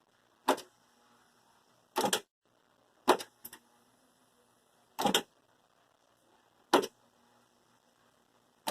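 A series of sharp clicks and knocks of small hard objects being handled, one every second or two with near silence between them.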